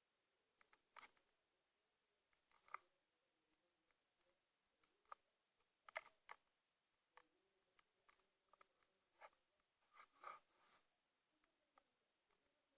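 A young woman hiccuping, several short, sharp hics a few seconds apart, with faint small clicks between them.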